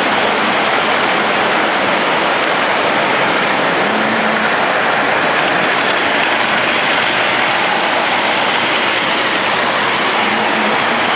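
Lionel tinplate toy train running on three-rail metal track: a steady, loud rolling rattle of metal wheels on the rails.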